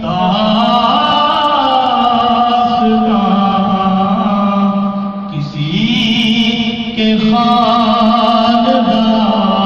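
A man's solo voice singing a devotional song into a handheld microphone, holding long, wavering notes in drawn-out phrases, with a short breath about five seconds in before a new phrase starts about seven seconds in.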